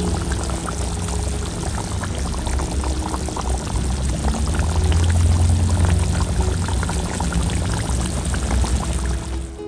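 Thick red chili sauce with pieces of fish bubbling and popping in a metal wok, a dense run of small pops. Background music plays underneath.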